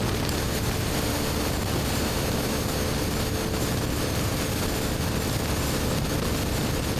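BMW R1250GS Adventure's boxer twin running through an Akrapovic slip-on exhaust at a steady speed, with no revving, under a constant rush of wind and road noise.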